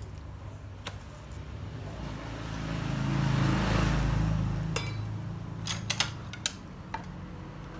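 A motor vehicle passes by, its rumble swelling to a peak midway and fading out. Several sharp clinks of a plastic rice paddle against a ceramic rice bowl and the rice cooker's pot come as rice is scooped, most of them in the second half.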